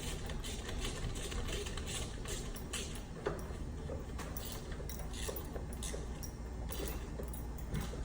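Scattered light clicks and taps of hand tools and metal parts as a wire is landed on a breaker in an electrical panel, over a steady low hum.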